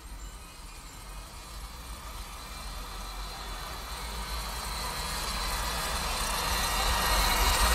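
Film soundtrack drone: a low rumble under a hissing wash, swelling steadily louder.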